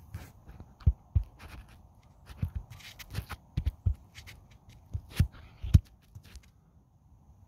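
Irregular soft thumps and clicks, about a dozen spread unevenly, over a faint rustling haze. No engine is running.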